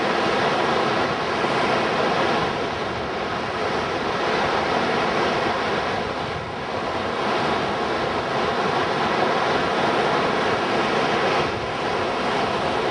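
Steady rush of whitewater from Connecticut River rapids and a standing wave running at high flow, about 56,500 cubic feet per second.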